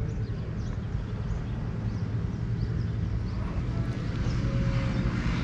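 Outdoor ambience: a steady low hum with faint, scattered bird chirps.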